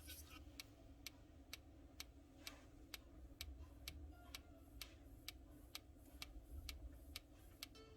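Faint, evenly spaced ticking, about two ticks a second, over a low hum.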